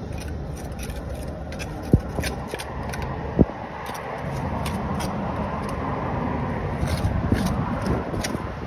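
Steel trowel scraping and working wet mortar into the gaps between interlocking paving stones, with two sharp knocks about two and three and a half seconds in, over a steady low rumble.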